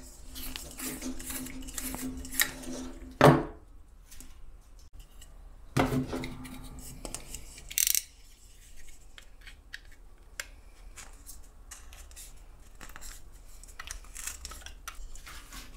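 An LED bulb being twisted in its plastic lamp socket: a grinding, squeaky plastic scrape that ends in a sharp click about three seconds in. A second scrape comes about six seconds in and a short rasp near eight seconds. After that, light clicks and scrapes come as a utility knife blade pries at the seam between the bulb's plastic housing and its diffuser.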